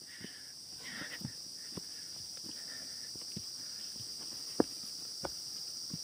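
A steady, high-pitched insect chorus in the forest, with irregular footsteps on a stone-paved trail as a hiker walks uphill; one sharper step or knock stands out a little after halfway.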